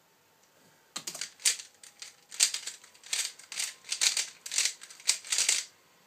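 A 3x3 Rubik's cube being turned at speed in a timed solve: quick runs of plastic clacking from the layer turns, in bursts with short pauses, starting about a second in after a quiet moment.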